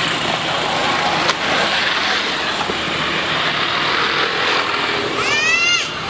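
A young macaque gives one short, high-pitched squeal that rises in pitch near the end, over a steady rushing background noise, with a single sharp click about a second in.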